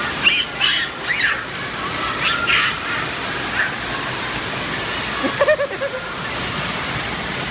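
Steady rush of splash-pad water jets spraying into shallow water, with children's short high-pitched squeals and shouts over it in the first few seconds and once more about five and a half seconds in.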